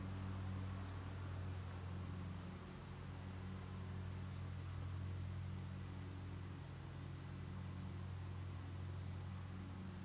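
Insects trilling steadily in a high, evenly pulsing band over a low, steady hum, with a few short high chirps scattered through.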